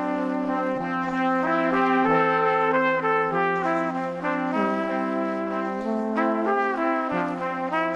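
Background music played by brass instruments, with held chords that change every second or so.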